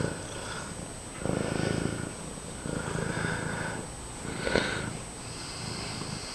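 Domestic cat purring loudly, swelling and fading with each breath about every second and a half.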